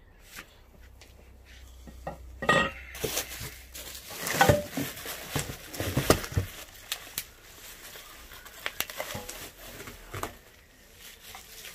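Bubble wrap and plastic packaging crinkling and rustling, with light knocks and clanks of powder-coated steel stand tubes, as parts are pulled out of a cardboard box. The handling is busiest a few seconds in and lighter near the end.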